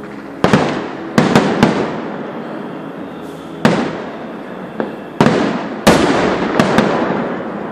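Aerial firework shells bursting in a display: about ten sharp bangs, some in quick succession, each followed by a rolling echo.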